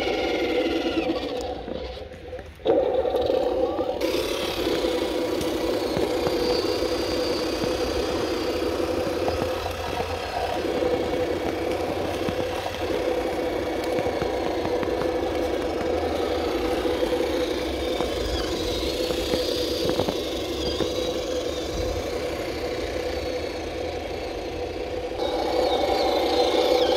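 Radio-controlled KrAZ-260 6x6 scale truck's motor and drivetrain running steadily under drive, a continuous mechanical hum that drops away briefly and comes back abruptly about three seconds in.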